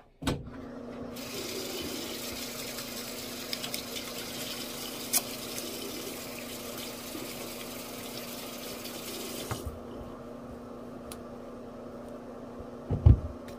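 Water running from a tap into a sink while hands are washed under it, with a steady low hum beneath. The splashing stops abruptly about nine and a half seconds in while the water keeps running, and a couple of sharp knocks come near the end.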